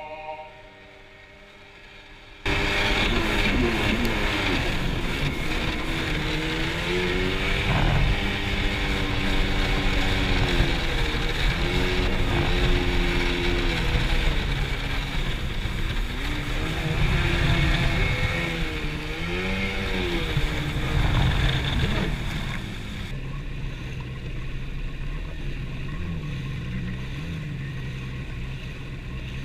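Arctic Cat Tigershark jet ski's two-stroke engine running under way with a rush of wind and water, coming in suddenly after a quieter first couple of seconds. Its pitch rises and falls again and again as the throttle is worked. Near the end it drops to a quieter, steadier drone.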